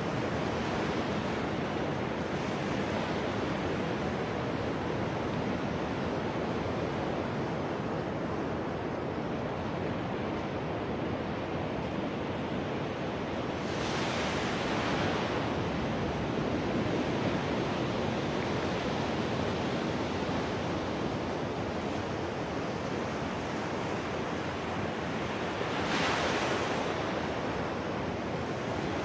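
Ocean surf washing up a sandy beach: a continuous rush of breaking waves, with a louder swell about halfway through and another near the end.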